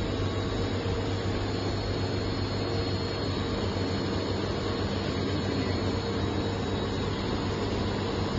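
Steady machinery hum with an even hiss, unchanging throughout, from the hair clip assembly machine and its workshop surroundings, running idle once switched on.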